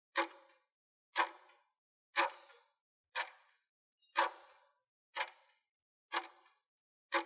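Countdown timer ticking like a clock: eight short, sharp ticks, one each second, each with a brief ringing tail.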